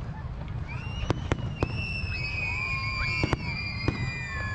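Fireworks display: aerial shells bursting with sharp bangs about once a second, some close together, over several long high whistling tones that slowly fall in pitch.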